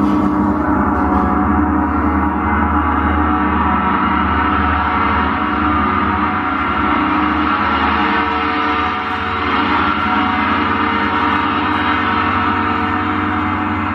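Ambient drone music: a sustained, gong-like wash of many steady tones that holds at an even level without pause.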